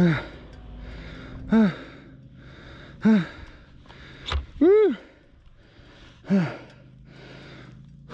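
A man's short voiced grunts of effort, five of them about a second and a half apart, each dropping in pitch, the fourth a longer call that rises and then falls, over the faint steady hum of a motorcycle engine.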